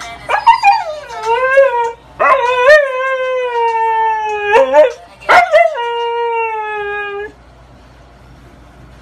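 Siberian husky howling: three long howls, each wavering at the start and then held on a steady pitch, with a couple of short yips between the second and third. The last howl cuts off sharply about seven seconds in.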